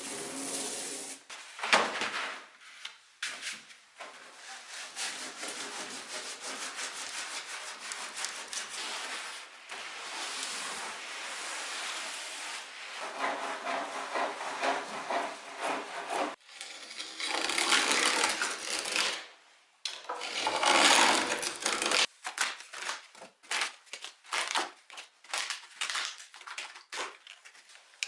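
Hand work rubbing and scraping on wood, first as a steady rasping, then as quick short strokes in the second half.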